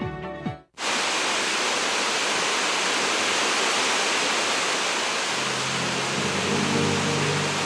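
Music cuts off abruptly under a second in. A steady, even rushing hiss follows, and low music notes come in under it about five seconds in.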